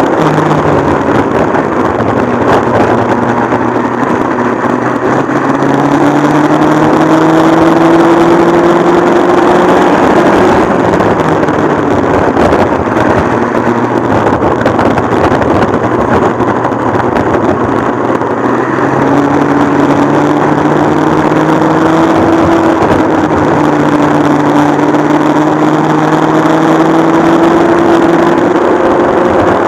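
Modified McCulloch MC49 two-stroke kart engine running hard under load. Its pitch climbs slowly through the first third, drops back about ten seconds in, then climbs again through the last third.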